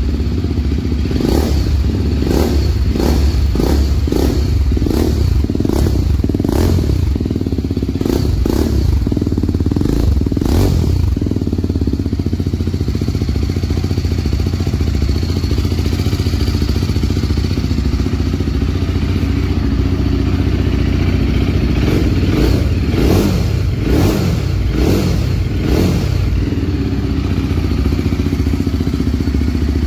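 BMW G310RR single-cylinder engine breathing through a Yoshimura exhaust with a Roar cat resonator and the dB killer removed, running with repeated short, sharp throttle blips. There are many blips in the first ten seconds or so and another cluster a little past halfway, with steadier running between.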